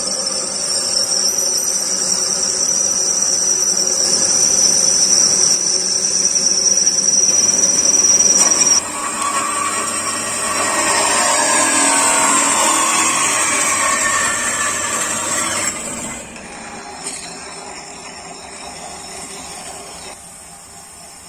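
Metal lathe turning an aluminium end plug, with a steady high whine that stops about nine seconds in. Then a metal-cutting bandsaw cuts through an aluminium tube, its whine falling in pitch. From about sixteen seconds, the lathe runs quieter while the spinning part is finished with an abrasive pad.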